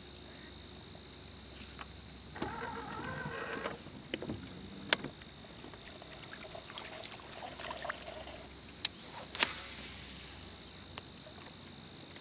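Baitcasting rod and reel in use while casting and working a topwater frog lure. A short whirring whine comes a couple of seconds in, then scattered sharp clicks, and a hissing, splashy burst about nine seconds in, all over a faint steady high whine.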